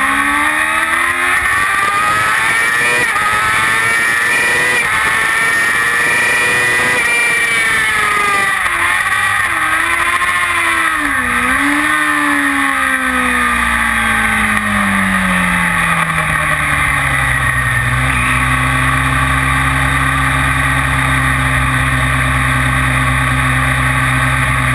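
Kawasaki ZX-6R inline-four engine heard from an on-board camera: the revs climb for several seconds, then fall as the bike slows, with a brief dip and pick-up about eleven seconds in, and settle to a steady low engine note for the last several seconds as the bike rolls at low speed.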